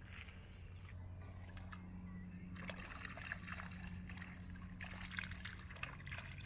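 Lake water lapping and trickling, with small splashes and drips, over a steady low hum.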